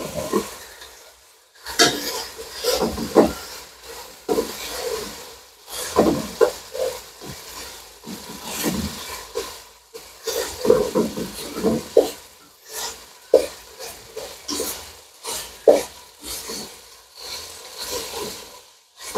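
Wooden spoon stirring and scraping diced chicken around a non-stick wok in quick, irregular strokes, with the meat sizzling over high heat.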